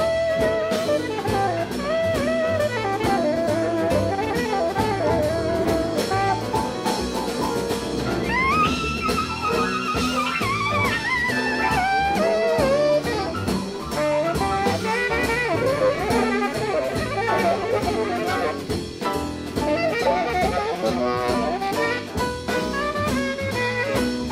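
Live jazz quartet playing: a tenor saxophone lead over piano, double bass and drum kit, with a high phrase that rises sharply about eight seconds in.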